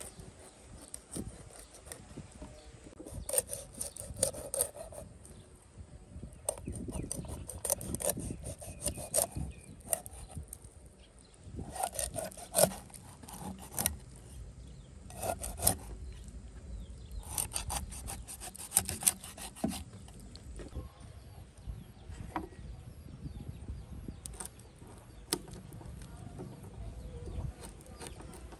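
Rapid scraping strokes in several bursts of one to three seconds each, with short pauses between.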